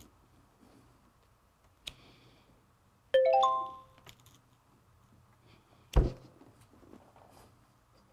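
A short chime sound effect with notes stepping upward, about three seconds in. About three seconds later comes one sharp knock.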